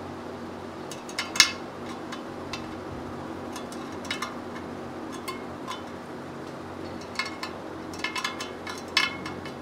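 Metal clinks and ticks of a spoke wrench working the spoke nipples of a Yamaha Twin Jet's laced front wheel as the spokes are tightened to true it, a cluster of them about a second in and a quicker run near the end, over a steady low hum.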